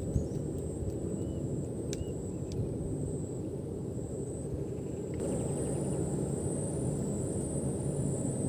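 Steady low outdoor rumble with a thin, steady high-pitched whine above it; a sharp click sounds right at the start, and the background steps up a little louder about five seconds in.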